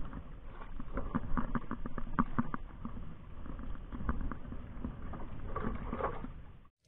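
Close rustling, tapping and knocking as fishing rods are handled against a wooden boat's side, irregular clicks throughout. Cuts off suddenly near the end.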